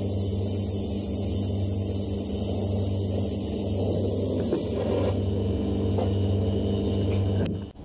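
Gas torch flame hissing over a steady low machine hum while molten metal is poured into a casting flask; the hiss dies away about halfway through and the hum carries on, then the sound cuts off sharply near the end.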